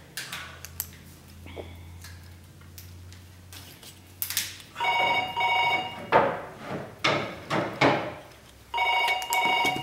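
A telephone ringing twice, each ring about a second long with a fast trill, about four seconds apart. Between the rings come knocks and rustles of things being handled on a table.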